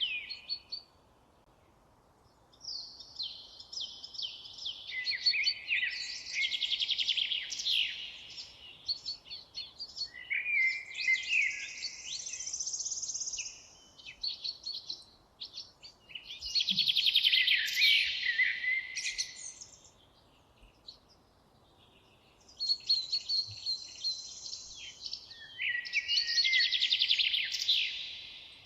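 Songbirds singing in bouts of quick, warbling, chirping phrases a few seconds long, with brief quiet gaps between them.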